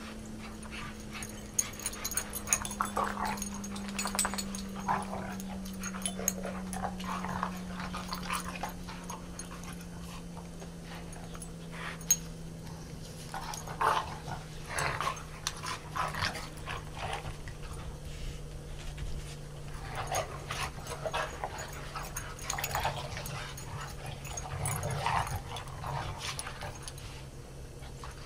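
Dogs play-wrestling, making short, irregular bursts of vocal noise that come and go throughout. A faint low hum slowly falls in pitch underneath.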